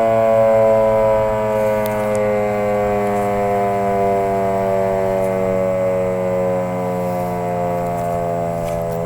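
1942 Model 5A electromechanical siren sounding a loud, steady, many-toned howl that slowly falls in pitch and gets a little quieter.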